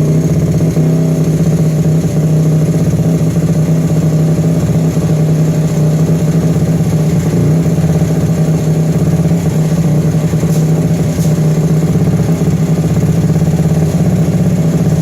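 Kitaco 88cc DOHC single-cylinder mini-bike engine with a Mikuni VM26 carburettor, running steadily at a constant speed.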